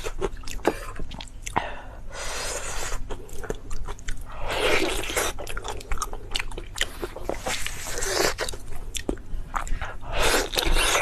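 Close-miked eating: biting and chewing with crunches and many small clicks, coming in several louder bursts a couple of seconds apart.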